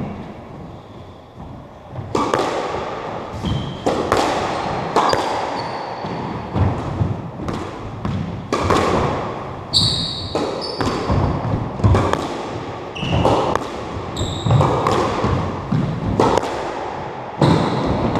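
Squash rally: a rubber squash ball cracking off racquets and the court walls about once a second, each hit echoing in the hard-walled court. Short high squeaks from court shoes on the wooden floor come between hits.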